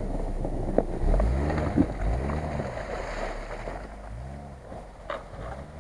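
Silver Nissan X-Trail driving slowly past through slushy mud ruts and pulling away, its engine and tyre sound fading.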